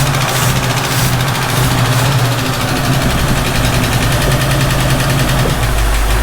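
1967 Ford Mustang V8 with an Autolite four-barrel carburettor, idling warm with a steady valve tick that the owners want to check. About five and a half seconds in, the engine's low tone drops lower.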